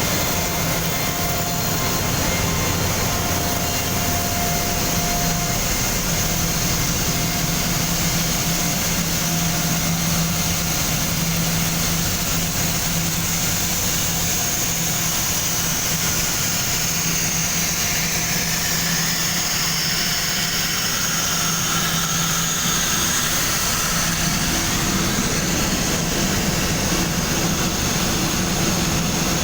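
Oil-free air compressor running steadily: a constant low hum under a high hiss.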